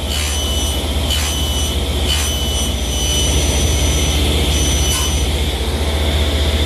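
Power saw running steadily with a high whine while it nibbles away wood in repeated passes to cut a lap joint. Faint knocks come about a second apart early on and once more near the end.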